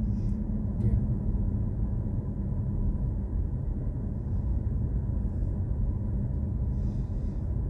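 Steady low road and tyre rumble inside the cabin of a BMW i4 M50 electric car on the move, with no engine note.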